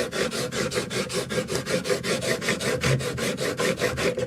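A steel chisel held in a honing guide rubbed rapidly back and forth on a wet sharpening stone, an even rhythm of scraping strokes, several a second, that stops abruptly at the end. It is honing the 30-degree micro bevel on the coarser stone.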